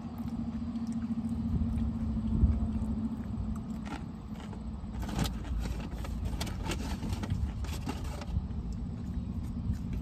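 Low motor-vehicle rumble with a steady hum for the first few seconds, and a run of sharp crackling clicks about halfway through.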